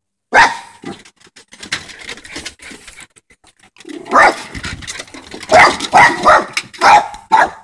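A dog barking at a groundhog: one loud bark about half a second in, then a quick run of about six barks in the second half, with quieter scuffling noises between.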